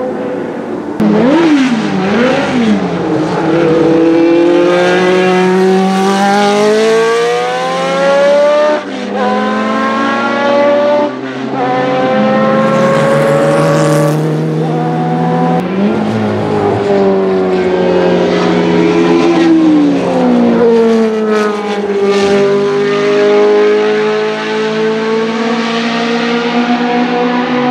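Racing car engine accelerating hard and climbing in pitch through several upshifts, each gear change a sudden drop in pitch. After that the pitch falls away as it slows, then holds steadier near the end.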